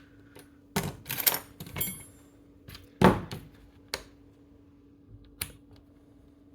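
Ball bearings and small gearbox parts clicking and tapping as they are fitted by hand into a Tamiya Bruiser/Mountaineer three-speed gearbox. There are about six sharp clicks at uneven intervals, the loudest about three seconds in, and one with a short metallic ring. A faint steady hum runs underneath.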